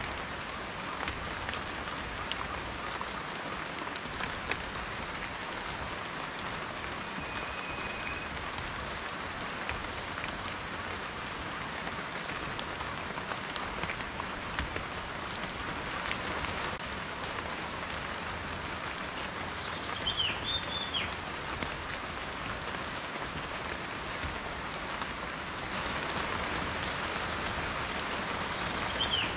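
Steady rain with individual raindrops ticking on a surface, growing a little heavier near the end. A brief high steady note sounds about seven seconds in, and two short high chirps about twenty seconds in.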